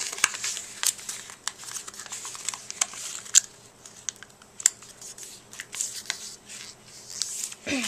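Sheet of A4 paper being folded and creased by hand: irregular crinkles and sharp crackles as the paper is handled and pressed down.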